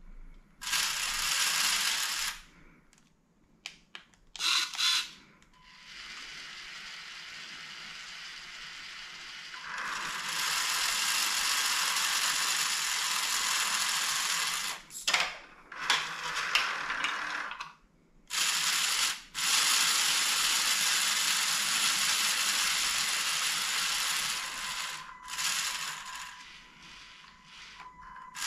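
Motorized Lego crane running in repeated spurts: small electric motors whirring through plastic gears as the hoist winds the hook up and lowers it again, with short stops between runs.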